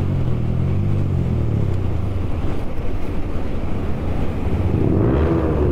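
Sport motorcycle's exhaust inside a road underpass. The engine note drops over the first couple of seconds, then climbs again near the end as the throttle is opened.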